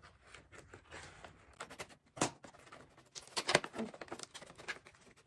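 Paper gift bag rustling and crinkling as it is handled and opened, with scattered small clicks and one sharper snap about two seconds in.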